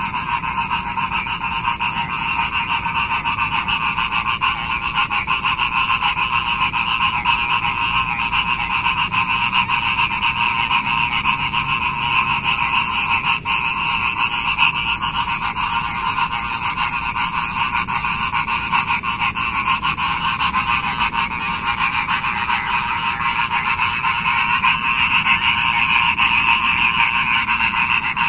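A chorus of many frogs calling at once from a rain-filled puddle: a dense, steady mass of overlapping calls that goes on without a break.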